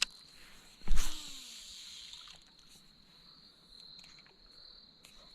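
A fishing cast about a second in: a sharp swish of the rod, then a hiss of line running off the spool that fades over about a second and a half. Then faint quiet outdoor background with a few small ticks.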